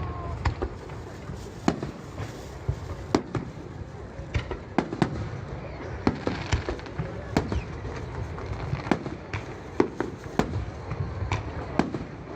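Fireworks display: shells bursting in an irregular run of sharp bangs, about two a second.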